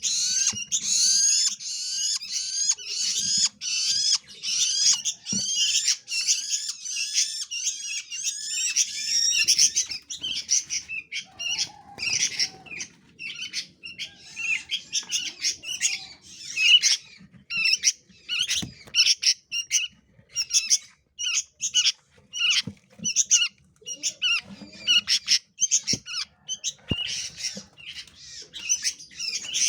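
Small songbirds calling rapidly. For about the first ten seconds the calls are dense and overlapping, then they thin out to separate sharp calls a few per second, with a few faint knocks underneath.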